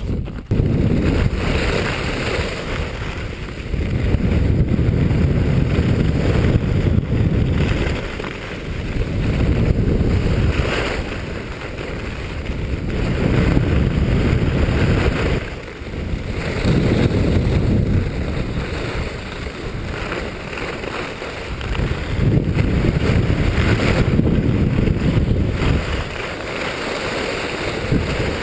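Wind rushing over the microphone of a camera worn while skiing downhill, mixed with the hiss and scrape of skis on groomed snow. It swells and eases every few seconds.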